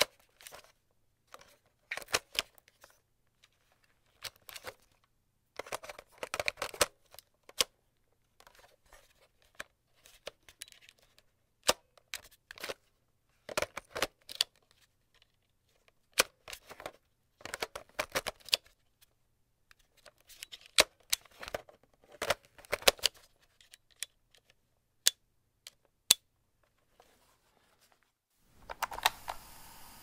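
A cassette tape and its plastic case being handled: irregular clusters of sharp plastic clicks and clacks. Near the end a steady hiss comes in.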